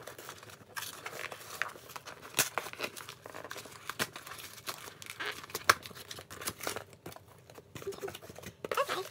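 Cardboard mailing box being torn open by hand: irregular ripping and crinkling of cardboard and paper.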